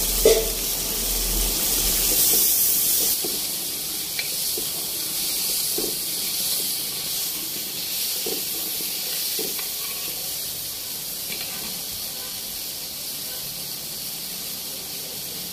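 Ground masala paste frying in hot oil in a large cooking pot over a high flame: a steady sizzling hiss, stronger for the first few seconds and then settling. A few faint light knocks come through it.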